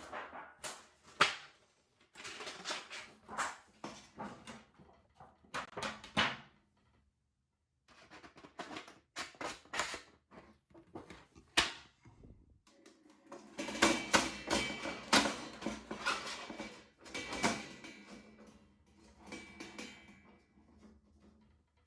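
Irregular handling noises: bursts of clatter and rustling with several sharp clicks, busiest in the second half, with a pause a third of the way through.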